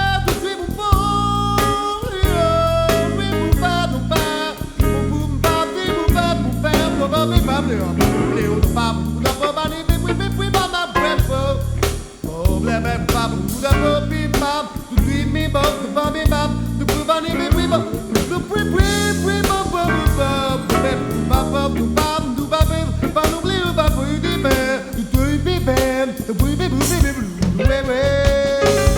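A blues song with a steady drum beat and guitar, and a singer's voice at times.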